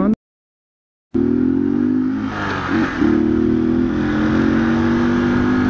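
Honda CG Titan's single-cylinder engine running on a straight pipe while the motorcycle is ridden, a steady, loud engine note with a brief dip about two and a half seconds in. The sound cuts out to silence for about a second near the start.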